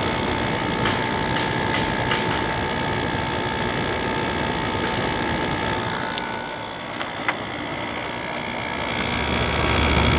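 Sharp Comfort Touch 5,000 BTU window air conditioner running on cool, its Rechi rotary compressor and fan giving a steady whir with a constant whine and a few faint clicks; a deeper hum comes in near the end. The compressor doesn't sound bad, though it is not the quietest.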